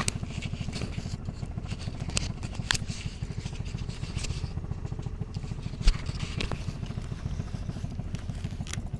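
Farm buggy's engine running steadily as it drives, with scattered clicks and rattles and a single thump about six seconds in.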